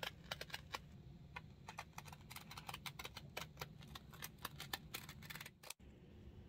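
Steel scissors cutting through woven lining fabric: a quick run of small, crisp snips and blade clicks, stopping abruptly a little before the end, over a low steady hum.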